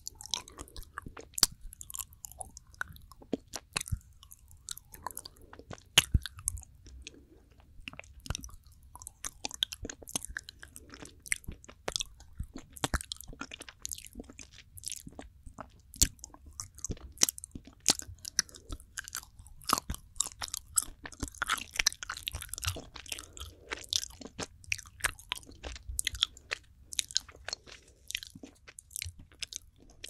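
Close-miked mouth sounds of chewing soft, fudgy planet chocolate: irregular wet smacks and sharp clicks, several a second throughout.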